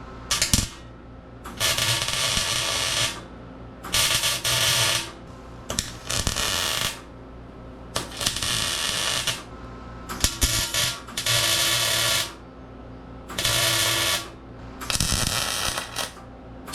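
Arc welder laying a series of tack welds on steel: about eight bursts of crackling arc, each a second or so long, with short pauses between them and a steady low hum underneath.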